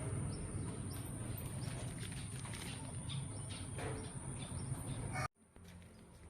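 Outdoor yard ambience: birds chirping here and there over a steady low rumble and a constant high-pitched whine. It cuts off abruptly about five seconds in and comes back quieter.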